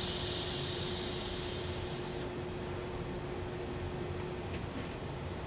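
Amana portable air conditioner running with a steady hum. A loud high hiss runs over it and cuts off suddenly about two seconds in.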